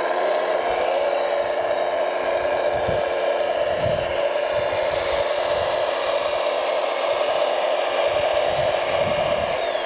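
Electric motor of a radio-controlled construction machine running with a steady high whine.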